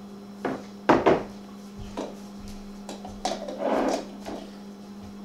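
Olive oil bottle and baking dish clunking against the kitchen counter as oil is poured over a raw chicken and the bottle is set down: a run of short knocks, the loudest two close together about a second in, with a longer scuffle near four seconds. A steady mains hum runs underneath.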